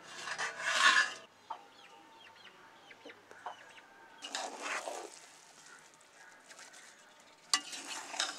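Chickens clucking in the background. A scrape of metal as a steel plate lid comes off the biryani pot at the start, and a sharp metal clink near the end.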